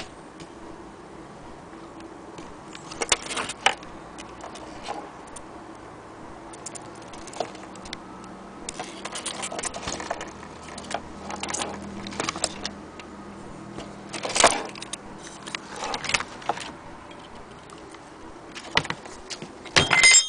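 Metal clock parts being handled: irregular clicks, knocks and rattles from a wall clock's brass movement and brass weight shells, with the loudest clatter near the end.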